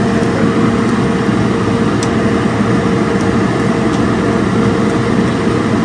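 Steady mechanical whir with a constant hum, like a fan running in a kitchen. A couple of light clicks come through as chopsticks work noodles in a saucepan of hot water.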